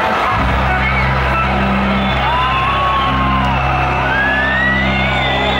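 Intro music from the festival PA starts about half a second in: low held drone notes, with long rising and falling tones above them, over a murmuring concert crowd.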